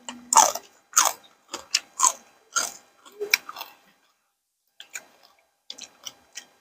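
Close-miked eating sounds: wet chewing clicks and crunches about twice a second, thinning after about four seconds to a few scattered clicks.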